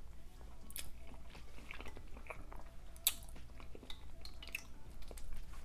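Close-miked chewing of seafood boil food, with scattered sharp wet mouth clicks.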